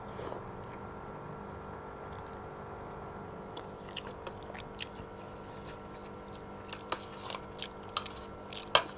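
A person chewing a mouthful of chicken noodles, with small wet mouth clicks and smacks that come more often in the second half and a sharper one near the end, over a faint steady hum.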